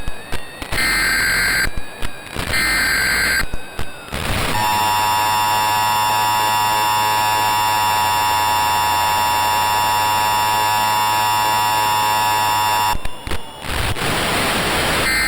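Emergency Alert System SAME header: three bursts of digital data tones, each about a second long with gaps of about a second, then the steady EAS attention tone held for about eight seconds. It cuts off into a couple of seconds of static-like noise, and the data bursts start again at the end.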